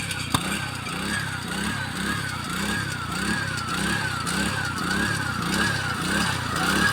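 Combine harvester running steadily. Its whine rises and falls in a regular cycle about twice a second. A single sharp click comes just after the start.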